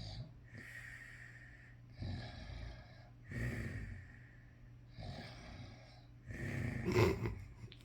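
Snoring: a run of about five noisy breaths in a steady rhythm, with the loudest one, a snort, about seven seconds in.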